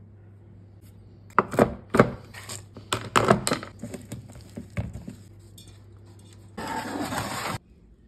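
Spatula knocking and scraping against a mixing bowl while stirring thick cookie dough, a run of sharp knocks starting about a second and a half in and lasting some three seconds. Near the end comes a steady rush of noise lasting about a second.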